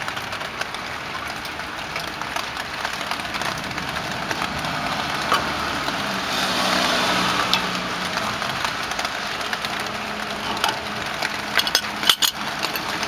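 Steady hiss of falling rain, with a few light clicks and taps near the end.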